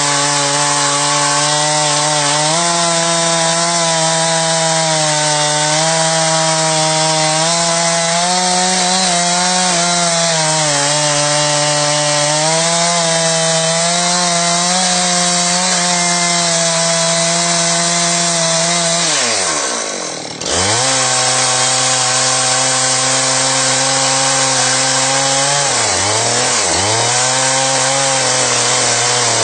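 Chainsaw mill ripping lengthwise through a cherry log, the saw engine running steadily under load. About two-thirds of the way through, the revs fall sharply almost to idle and climb back, with another short dip and recovery near the end.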